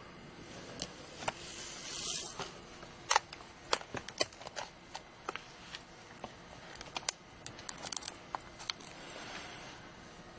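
A photo album being pulled from a shelf and opened: a rustling slide about two seconds in, then a run of sharp clicks and taps of the cover and pages being handled.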